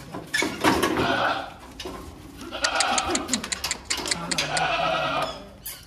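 Beetal goats bleating, with a quick run of clattering knocks about halfway through.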